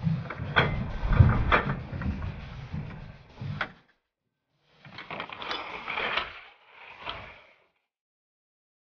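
Rumbling noise with several sharp knocks at a ski-jump start bench. After a second of silence come two short sliding, scraping stretches as a ski jumper's skis run down the in-run track.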